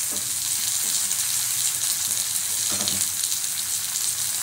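Chopped onions and bay leaves frying in hot oil in a metal kadai: a steady sizzle, with a faint knock twice.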